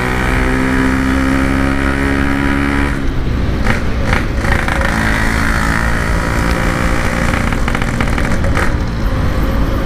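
Yamaha RX-King's single-cylinder two-stroke engine running through a hollowed-out stock-style exhaust while riding. It holds a steady note for about three seconds, then the note breaks up into a rougher running sound with a couple of brief sharp noises.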